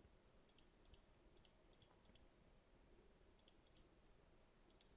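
Faint computer mouse button clicks, about nine of them in small groups of two or three, over near-silent room tone.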